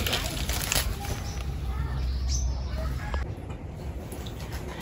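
Rustling of leaves and brush as someone moves through garden plants, with scattered crackles in the first second. A short falling bird chirp comes about two seconds in.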